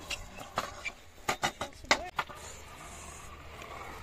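Stunt scooter on skatepark concrete: a quick series of sharp clacks from the deck and wheels hitting down in the first couple of seconds, then the wheels rolling steadily.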